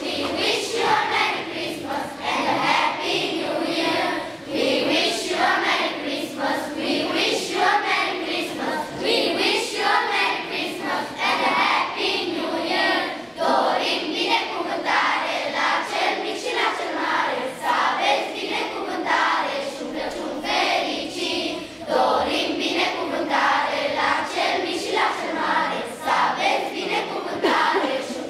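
Children's choir singing a song together, many young voices in unison.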